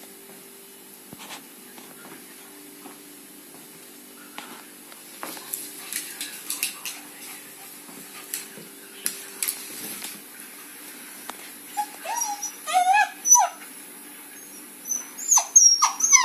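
Puppy with paralysed hind legs whimpering and yipping in short, high cries that rise and fall, in the last few seconds. Before that, scattered clicks and scuffs as it moves on the wooden parquet floor.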